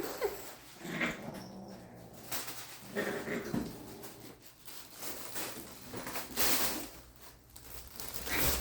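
Domestic cats moving about at close range: scattered short rustling noises, with a brief pitched animal-like sound about three seconds in.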